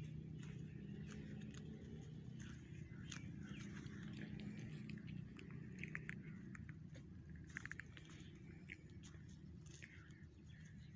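Dry leaf litter crunching and crackling in scattered sharp clicks, as underfoot on a forest walk, with a couple of short rapid bird chirps about six and seven and a half seconds in, over a steady low hum.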